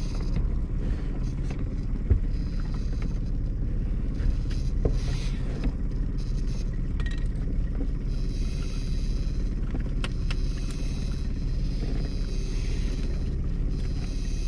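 Small outboard motor running steadily at trolling speed, a low rumble, with a sharp knock about two seconds in.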